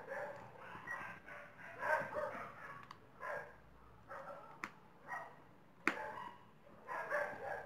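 A dog barking repeatedly in short calls, with two sharp clicks from a screwdriver tightening the screw of a plastic plug cover.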